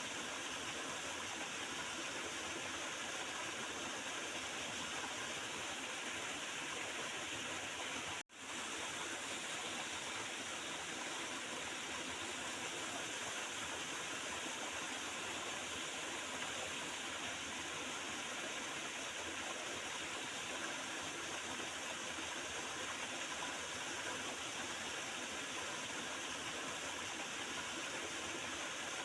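Small river flowing and gurgling steadily. The sound cuts out for a split second about eight seconds in.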